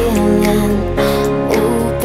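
Deep house music: a sung vocal melody over a steady bass line.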